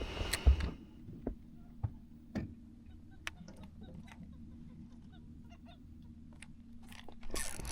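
Birds calling with honk-like cries over a steady low hum, with a loud thump against the boat about half a second in and scattered knocks.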